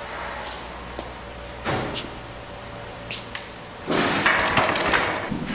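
Steel pallet rack upright frame being handled on a concrete floor: scattered metal knocks, then a louder clattering, rattling stretch from about four seconds in as the frame is lowered.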